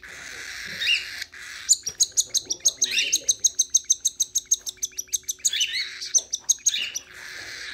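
Hand-fed lutino cockatiel chick giving rapid, rhythmic begging chirps, about six a second, while it takes formula from a syringe, with a few short falling chirps in between.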